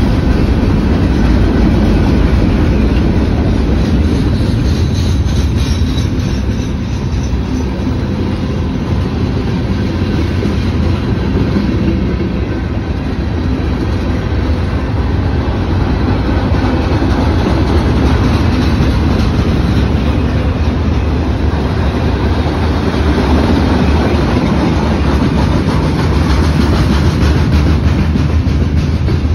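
Freight cars of a CSX train rolling steadily past, their steel wheels running loud on the rails.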